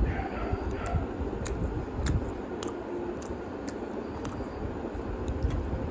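Eating at close range: scattered small clicks and smacks of mouth and fingers over a steady background hum.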